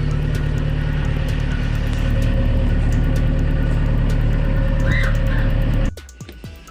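Excavator's diesel engine idling steadily, running to power the newly fitted LED work lights; the sound cuts off abruptly near the end.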